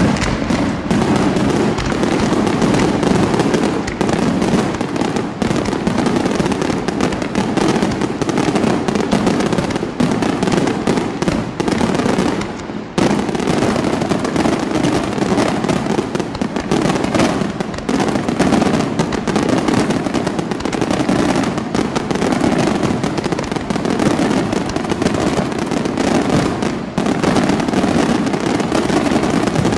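Aerial fireworks display: dense, continuous crackling of many shells and glittering stars bursting overhead, with a brief lull about 13 seconds in.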